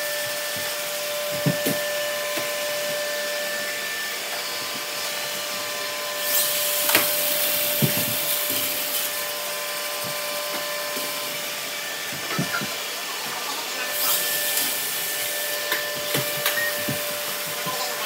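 Several robot vacuums running at once on a wooden floor: a steady whir of motors and brushes with a thin high whine, broken by a few short knocks.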